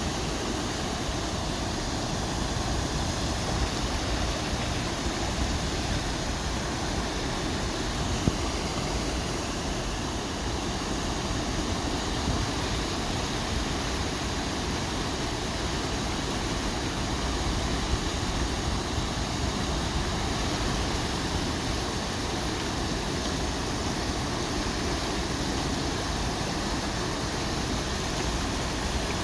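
Small river rushing, a steady noise of flowing water, with one short knock about eight seconds in.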